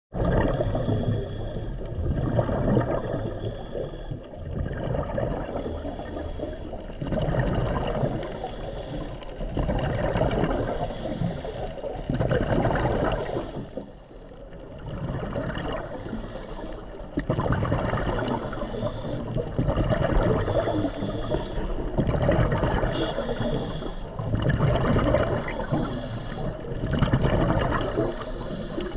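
Underwater sound of a swimmer filming: bubbling, gurgling water around the camera, with a hissing breath recurring about every two and a half seconds.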